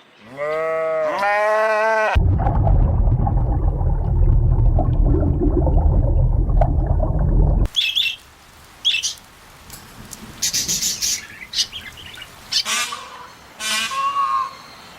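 A wavering, bleat-like animal call, then about five seconds of loud low noise that cuts off suddenly, then birds chirping and squawking in short calls.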